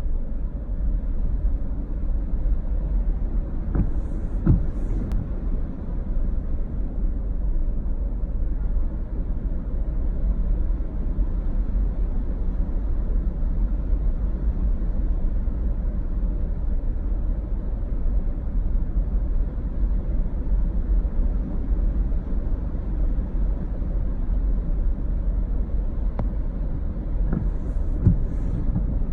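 Steady low rumble of city street traffic, with a couple of short knocks about four seconds in and again near the end.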